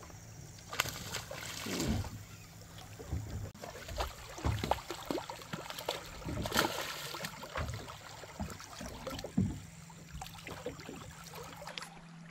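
River water lapping and splashing against the side of a boat, in irregular small splashes and knocks.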